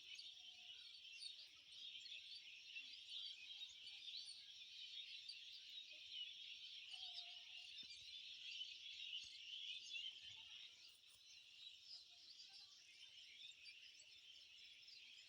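Faint, dense chorus of many birds chirping high and continuously, with a few lower whistled notes now and then.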